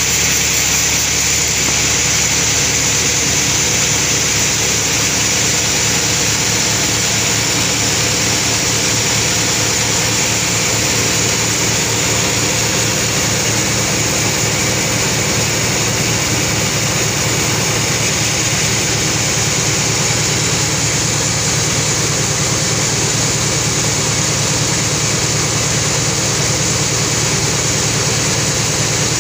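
Sawmill machinery running steadily: an even mechanical hum with a high hiss over it, unchanging throughout.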